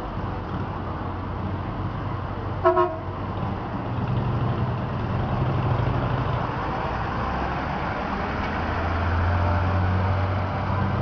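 Bus engine running steadily, with a brief horn toot about two and a half seconds in. The engine grows louder near the end.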